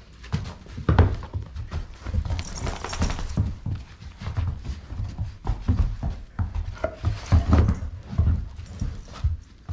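Adult Doberman and Doberman puppy play-fighting: irregular thuds of paws and bodies on a rug, with scuffling and a few short dog noises.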